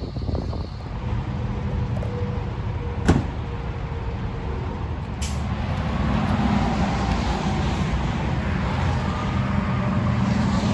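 Pickup truck engine running steadily with a low rumble, and one sharp click about three seconds in.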